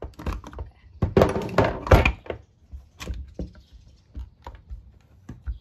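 Plastic clamshell housing of a corded Milwaukee impact wrench being pulled apart by hand: a dense run of knocks and clatter about a second in, then a few single clicks and knocks as the parts are handled on the wooden bench.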